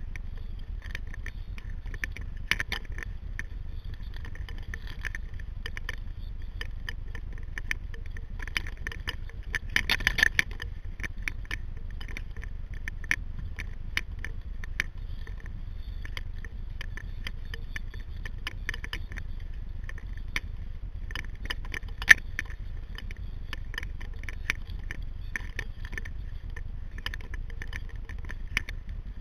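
Sea kayak under way: irregular clicks, light knocks and scrapes over a steady low rumble, with a busier patch about ten seconds in and one sharp knock about two-thirds through.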